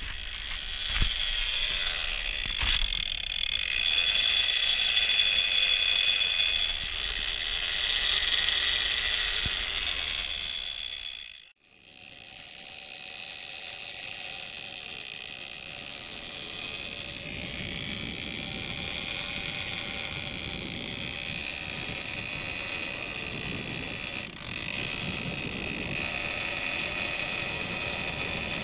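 Drag of a gold Shimano lever-drag big-game reel screaming as a hooked bluefin tuna runs and pulls line off the spool: a steady high-pitched whine. It cuts out abruptly about eleven seconds in and goes on more quietly.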